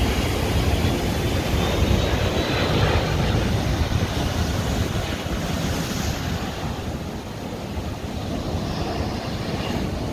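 Jet airliner passing low on approach, its engine noise steady and mixed with wind on the microphone and surf; a faint high whine rises slightly over the first few seconds.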